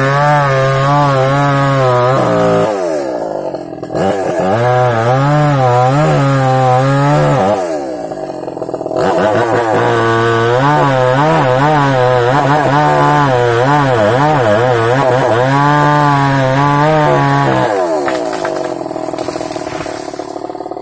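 Small chainsaw cutting into a large tree trunk for a felling cut, in three long runs with the engine pitch wavering under load. Between runs it eases off, and near the end the revs fall away.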